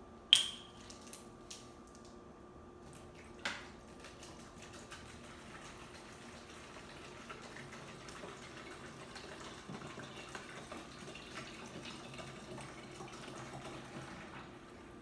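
Water pouring from a large plastic jug into a shaker bottle: a steady pour that builds from about five seconds in and fades near the end. Before it there is a sharp click just after the start and a smaller knock about three seconds later.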